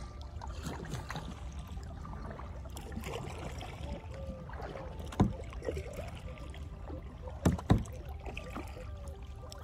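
Kayak paddling: paddle blades dipping and splashing in the water over a low steady rumble. A sharp knock comes about five seconds in and two more close together near the end.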